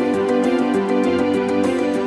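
Background music: steady held notes under a light, even ticking beat of about four ticks a second.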